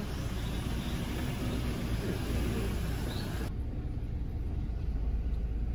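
Steady vehicle rumble with no speech. About three and a half seconds in, the sound turns duller and low: the muffled engine and road rumble heard inside a Toyota SUV's cabin.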